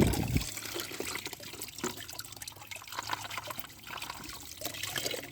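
Water trickling and splashing as muddy toy vehicles are washed, with many small drips and clicks. A short thump comes right at the start.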